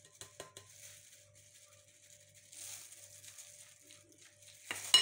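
Metal spoon clicking and scraping in a glass bowl as minced beef is mixed. There are a few light clicks at the start and one sharp clink near the end.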